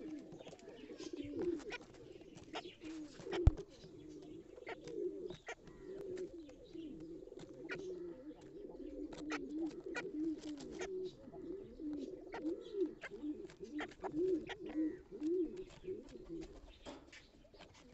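Pigeons cooing almost without pause, with many sharp clicks of beaks pecking at grain on the loft floor and one loud knock a few seconds in.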